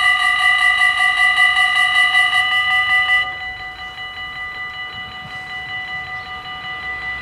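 Dutch level-crossing bells ringing fast and steady while the barriers lower. About three seconds in, as the booms reach horizontal, the ringing drops sharply to a quieter level and carries on.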